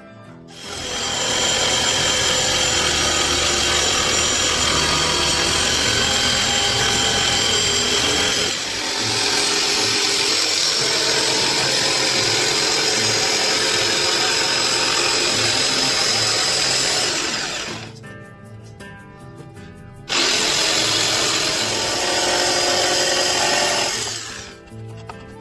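INGCO corded jigsaw cutting through a wooden board. It runs steadily for about seventeen seconds with a brief dip partway, stops, then starts again abruptly about two seconds later for a shorter cut.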